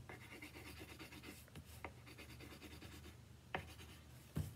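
Faint, quick back-and-forth scratching of a coloring stick scribbling on a paper worksheet against a table, with a few light taps.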